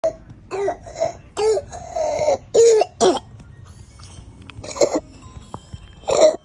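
A young child's harsh barking cough, the classic 'seal bark' of croup: a quick run of coughs in the first three seconds, a pause, then two more single coughs.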